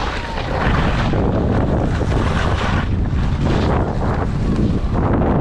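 Wind buffeting the microphone of a camera on a moving skier, over the hiss and scrape of skis sliding and carving on snow, the scraping swelling and fading several times.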